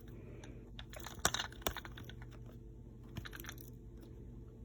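Plastic clicks and knocks from handling the detachable dust cup of a cordless stick vacuum, the loudest cluster about a second in, with a few lighter clicks around three seconds.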